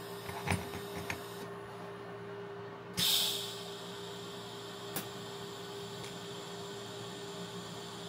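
Steady hum with a few light clicks, and a short burst of hiss about three seconds in.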